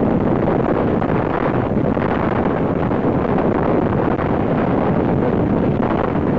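A rescue helicopter close by, its rotor and engine noise mixed with a steady rush of wind buffeting the microphone.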